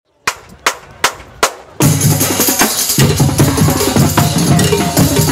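High school marching band in the stands: four sharp, evenly spaced clicks count off, then about two seconds in the full band comes in loud, with snare, tenor and bass drums, tambourine and brass including sousaphones.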